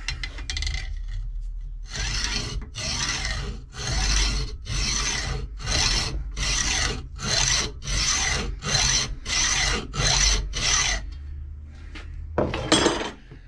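Hacksaw cutting through the splined end of an electric starter motor's shaft: steady back-and-forth strokes, about one and a half to two a second, with a short louder clank near the end.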